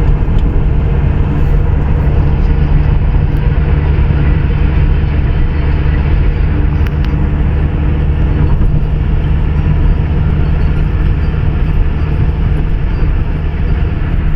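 Steady engine and road noise of a car travelling at speed, with a constant low hum.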